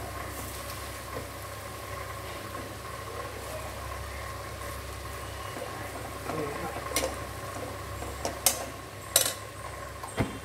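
Metal perforated ladle stirring vermicelli upma in an aluminium kadai, with a few sharp knocks of the ladle against the pan in the second half, over a steady low hum.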